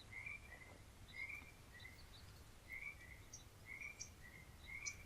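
Faint nature-sound background: a small animal's chirping call, usually two short notes close together, repeating about once a second, with a few faint high ticks.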